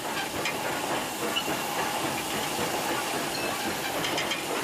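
Steady hiss of escaping steam from steam locomotives in a loco shed, with a few faint ticks.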